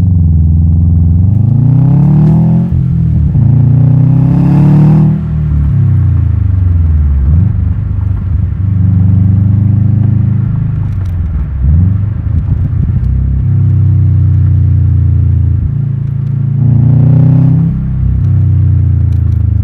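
2017 Subaru STI's turbocharged 2.5-litre flat-four engine and exhaust, revving up and dropping back several times in a row with a deep rumble.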